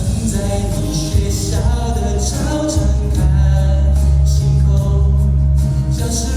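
A Mandarin pop ballad performed live: a singer's voice over steady musical accompaniment.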